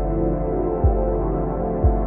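Ambient background music: held, slowly shifting tones with a deep low beat about once a second.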